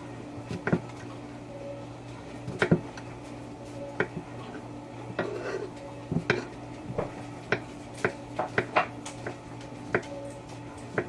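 Kitchen knife knocking on a cutting board while slicing mushrooms: irregular sharp taps, some a few seconds apart and some in quick runs, over a steady low hum.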